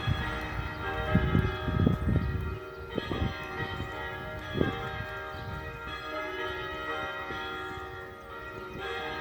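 Church bells ringing, many tones overlapping and sustained. A few low thumps come through in the first half.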